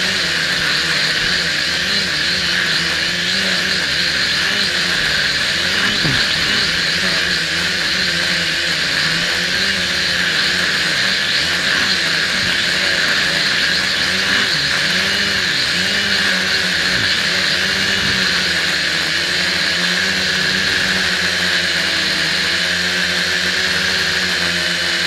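Small quadcopter's electric motors and propellers whirring, heard through a keychain camera mounted on the craft, with the pitch rising and falling over and over as the throttle changes.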